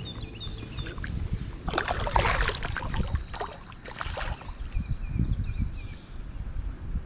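Water splashing as a smallmouth bass is released in a shallow stream and kicks away: two splashy bursts, about two seconds in and again around three to four seconds in.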